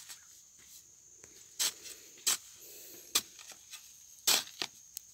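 A long-handled metal digging tool chopping and prying into hard, dry soil to loosen cassava roots: about five sharp strikes, irregular and roughly a second apart, the loudest a little past the middle.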